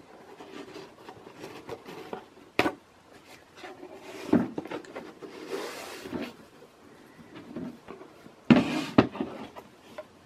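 A ribbon-tied cardboard gift box being unwrapped and opened by hand: rustling and scattered knocks of cardboard, the loudest two close together near the end.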